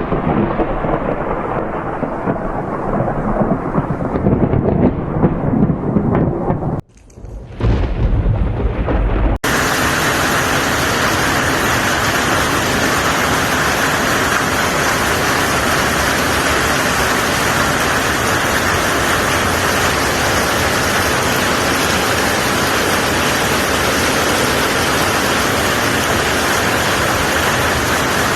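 Thunder rumbling over rain for about nine seconds, with a brief drop-out and a heavy low rumble just before it ends. Then a sudden cut to the steady, even hiss of a heavy storm downpour.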